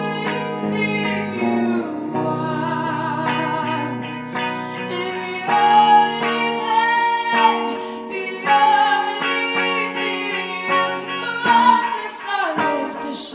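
Song with a woman singing, her held notes wavering in pitch, over instrumental accompaniment with a plucked guitar.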